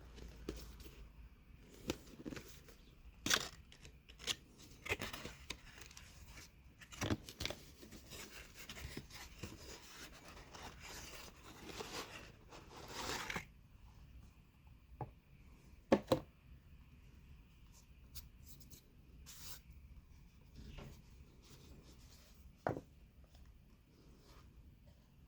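Packaging being opened by hand: stretches of tearing and rustling, densest in the middle, broken by scattered sharp clicks and taps, the loudest about two thirds of the way in.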